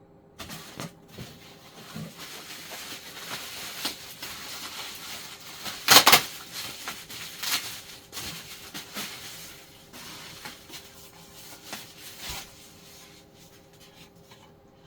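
Packaging and small parts handled by hand: rustling with scattered clicks and light knocks, and one loud sharp crackle about six seconds in.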